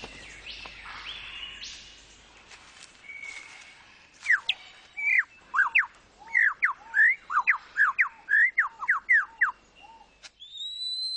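Superb lyrebird singing: after a few seconds of fainter forest birdsong, a run of loud whistled notes begins, each swooping up or down, about two a second. Near the end a higher, steadier whistle follows.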